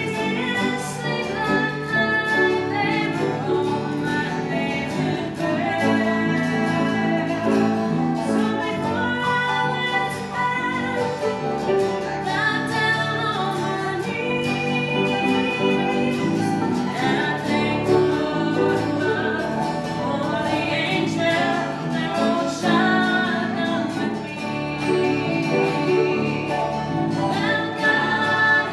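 A family gospel group singing together, with instrumental accompaniment.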